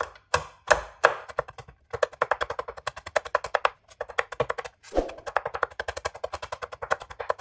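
Kitchen knife chopping soft bitter gourd seeds and pith on a wooden cutting board: a few separate chops, then fast, rhythmic chopping of several strokes a second, with short pauses and one harder chop about five seconds in.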